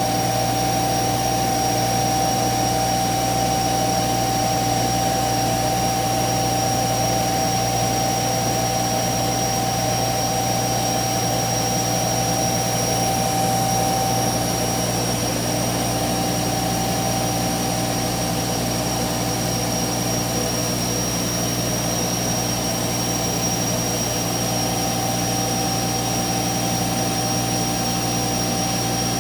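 CNC router running: a steady high whine from the spindle over an even machine rush. The whine softens a little about halfway.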